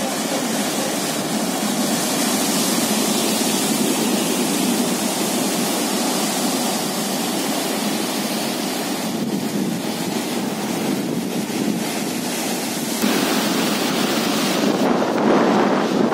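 Heavy surf breaking and foaming over coastal rocks in a rough sea: a steady rush of white water, with wind buffeting the microphone. The sound turns louder and gustier about thirteen seconds in.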